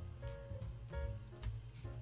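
Quiet background music: a run of short notes, one about every half second.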